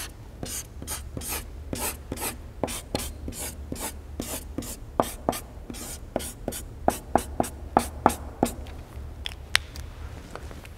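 Writing by hand: a run of quick scratching strokes, about three a second, thinning out to a few scattered strokes in the last two seconds.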